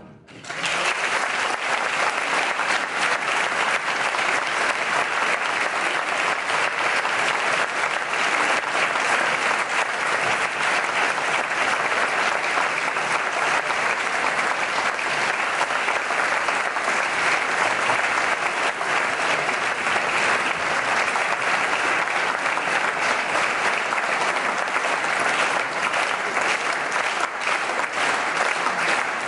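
Concert audience applauding steadily, starting within the first second.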